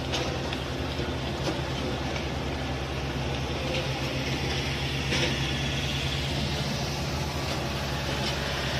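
Heavy road-construction machine's engine running at a steady speed, with a few short sharp clicks or knocks over it.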